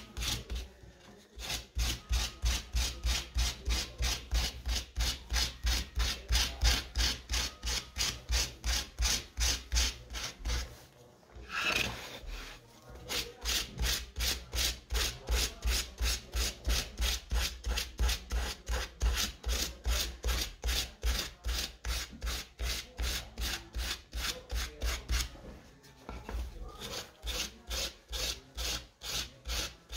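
Sandpaper rubbed back and forth by hand over carved wood, rounding off the relief: an even rhythm of rasping strokes, about two and a half a second, stopping briefly a few times.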